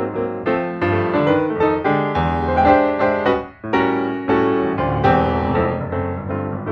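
Background piano music: a steady stream of struck notes, each ringing and fading, with a short break about three and a half seconds in.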